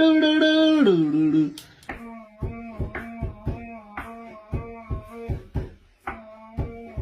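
A loud hummed vocal stim, one held tone stepping back and forth between a low and a higher pitch. It stops about a second and a half in. From about two seconds in, a quieter rhythmic beat follows, with thumps about three times a second under a repeating two-note tune.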